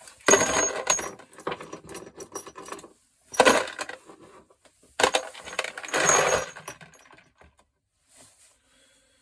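Small pieces of scrap brass from a gas stove clinking and clattering together as they are handled and dropped. The clatter comes in three spells: a long rattle starting just after the start, a brief loud one around three and a half seconds, and another from about five to seven seconds.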